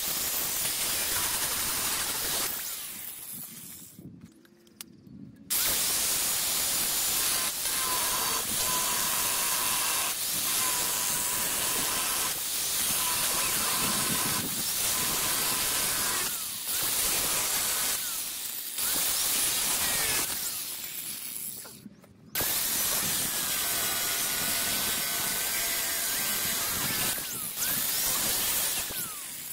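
DeWalt angle grinder with a thin cutting wheel slicing through a Ford Ranger's steel frame rail: a hissing grind over the motor's whine, which wavers in pitch as the wheel bites. It winds down and stops about four seconds in, starts again a second or so later, and pauses again briefly about two-thirds of the way through.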